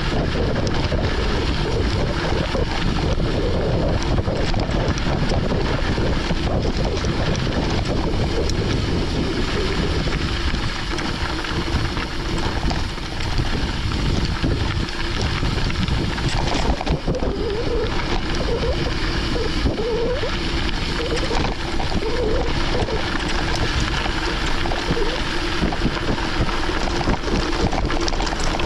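Steady rush of wind on the microphone and tyre noise while a mountain bike is ridden along a gravel forest road, with a faint steady hum underneath.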